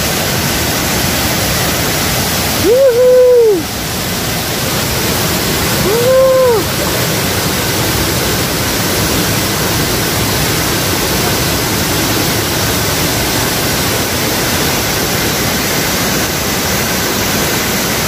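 Steady rush of a tiered cascade waterfall pouring into its pool. Twice, about three and six seconds in, a brief pitched sound rises and falls over the water, louder than it.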